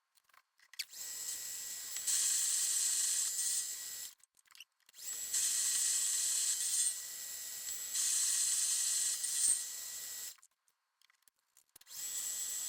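Paulimot mini lathe running with a steady high motor whine as it turns a shaft, louder for a second or two at a time while the tool cuts. The lathe stops about four seconds in and again near the end, starting up again each time.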